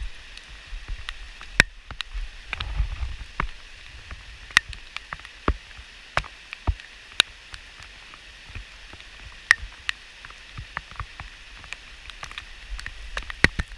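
Flowing stream water with a steady hiss, broken by many sharp, irregular clicks and ticks, and a brief low rumble a couple of seconds in.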